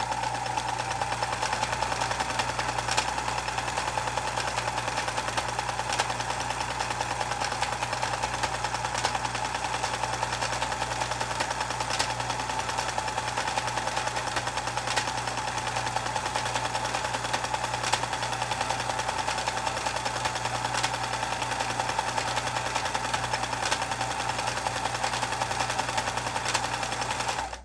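Vintage Brother Pacesetter XL703 sewing machine running fast, stitching a satin stitch with steady rapid needle strokes over a low motor hum. It stops abruptly near the end.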